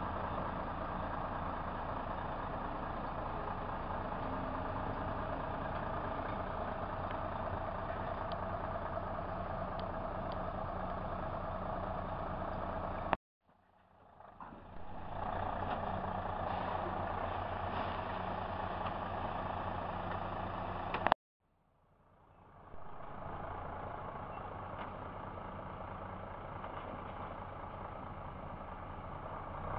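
Mercedes-Benz hooklift truck's diesel engine running steadily at low speed. The sound cuts off suddenly twice with a click and then comes back.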